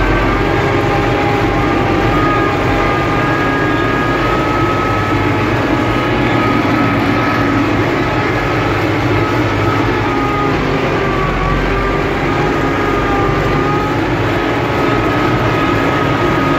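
UTB Universal 650 tractor's four-cylinder diesel engine running steadily under load, pulling a combinator across a field, heard from the cab. The engine drone carries a faint wavering high whine.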